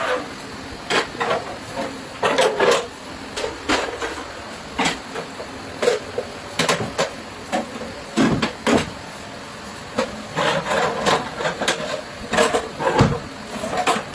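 Metal spatula knocking and scraping on a hot tawa griddle while liver fries: irregular clattering strokes, several a second in bunches, over a steady background hiss.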